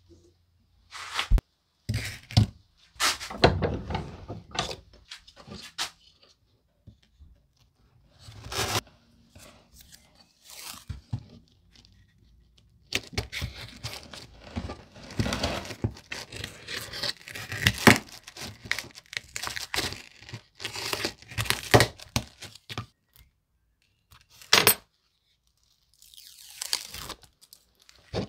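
Adhesive tape being pulled off its roll in irregular ripping bursts, mixed with knocks and rustling from parts being handled on a workbench.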